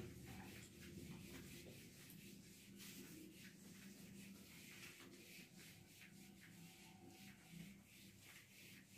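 Faint rubbing of a handheld whiteboard eraser wiping a whiteboard clean, in repeated strokes.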